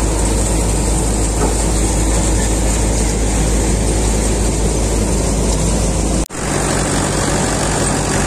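Peanut thresher driven by a Mahindra 585 DI tractor, running steadily under load as the groundnut plants go through. About six seconds in the sound cuts to the tractor's diesel engine running close up, with even low pulses.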